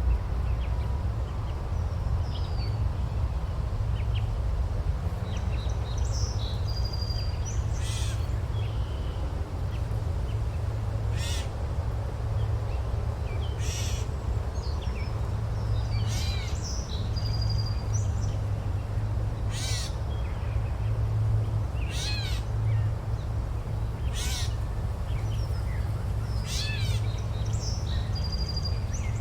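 Forest ambience: a steady low rumble, with a bird repeating a short rough call every two to three seconds from about a quarter of the way in, and a few brief high whistles between the calls.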